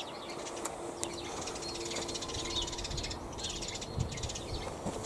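Outdoor ambience: birds chirping over a steady hiss. A faint steady hum of two notes runs through the first half and then fades.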